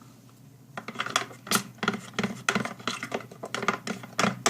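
Rapid, irregular light clicks and taps of hard objects being handled on a tabletop, starting about a second in.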